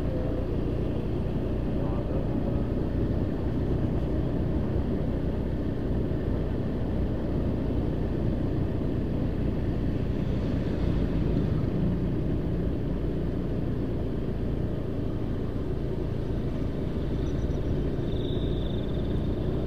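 Motorcycle riding along at a steady pace: a steady low rumble of engine and wind noise.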